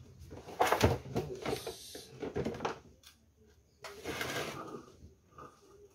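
Plastic tank of a Swan F-16 electric knapsack sprayer being handled and shifted on a concrete floor: scraping and knocking in two spells, the louder one starting about half a second in and a shorter one around four seconds in.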